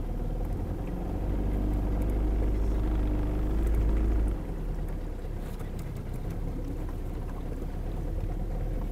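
Small boat's motor running steadily at low cruising speed, with a deep low rumble that builds after about a second and cuts off suddenly about four seconds in.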